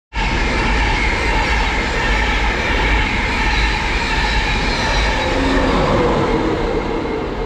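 Train passing close by through the station: a loud, steady rumble of wheels on rail with a whining tone over it, starting suddenly and easing slightly near the end.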